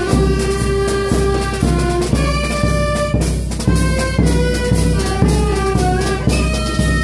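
Street band of saxophones, clarinet and trumpet playing a tune together over a drum beaten about twice a second.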